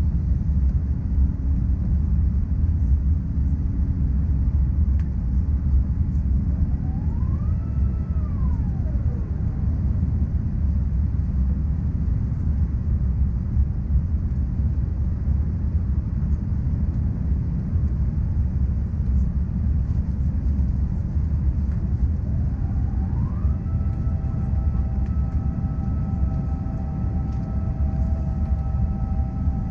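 Cabin noise of an Airbus A350-900 in its climb: a steady low rumble from its Rolls-Royce Trent XWB engines and the airflow. About 7 seconds in, a mechanical whine rises, holds briefly and falls away. About 22 seconds in, another whine rises and settles into several steady whining tones.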